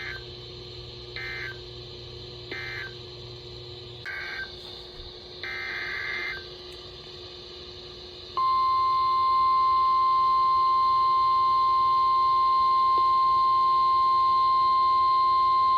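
Five short buzzing bursts of SAME digital data over weather radio, the last about a second long. About eight seconds in, the NOAA Weather Radio 1050 Hz warning alarm tone starts: a loud, steady single beep held to the end, signalling that a new warning is about to be read.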